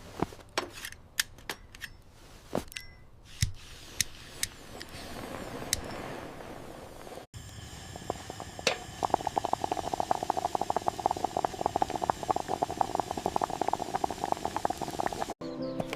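Scattered sharp clicks and knocks over faint background noise, then, after a cut about seven seconds in, a fast, dense clicking rattle that runs until a second cut near the end.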